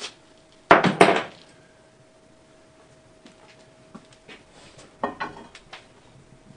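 A steel bar clanking against an old steel basement support jack: two loud metallic strikes about a second in, ringing briefly, then a short rattle of lighter clinks near the end.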